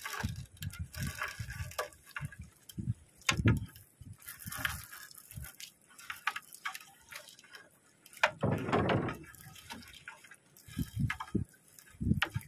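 Seawater splashing and dripping as a fishing net is hauled into a small boat, with irregular low thumps and one longer splash about eight seconds in.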